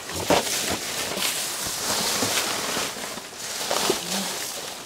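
Rustling and knocking of trash being rummaged through in a dumpster, with a few sharper knocks among the continuous rustle.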